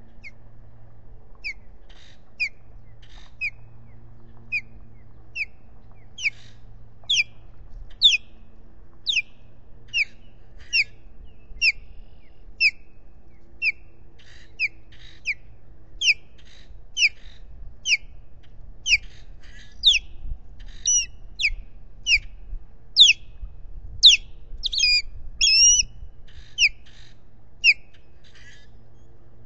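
Osprey calling: a series of short, high, downward-slurred whistled chirps, about one a second, growing louder toward the end, with a quick run of calls about three-quarters of the way through.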